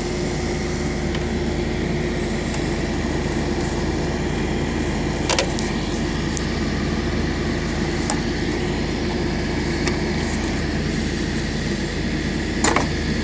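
A steady mechanical hum runs throughout, with two sharp plastic clicks, one about five seconds in and one near the end, as the headlight bulb's wiring harness and clip are worked loose.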